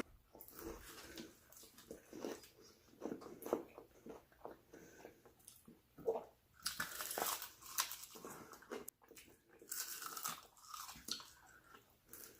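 Person chewing and biting Chinese food: irregular small clicks and wet mouth sounds, with louder bites about seven and ten seconds in.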